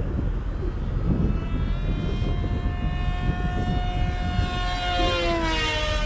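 Rambler RS flying wing's electric motor and propeller whining, growing louder as it comes in and dropping in pitch as it passes by about five seconds in. Gusty wind rumbles on the microphone throughout.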